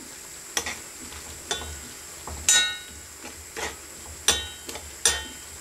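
A metal spoon stirring sour cream sauce with fried carrots and onions in a frying pan, scraping and knocking against the pan about once a second, some knocks ringing briefly, over a faint steady sizzle from the pan.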